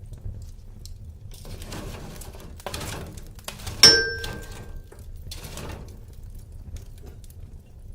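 Wood fire burning in a fireplace, a low rumble with scattered crackles. About four seconds in comes a single sharp clink that rings briefly, like metal or glass being struck.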